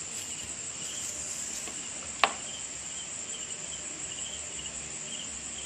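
Crickets chirping steadily, a high continuous trill with a pulsing lower chirp over it. A single sharp click about two seconds in.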